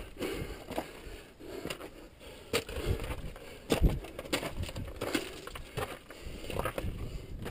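Loose, broken rock crunching, scraping and clattering under a climber's boots and hands while scrambling up a steep scree-filled rock chimney: irregular knocks and scrapes, the loudest about four seconds in.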